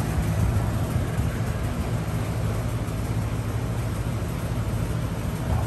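Steady low mechanical hum with an even hiss over it, unchanging throughout: air-conditioning units running.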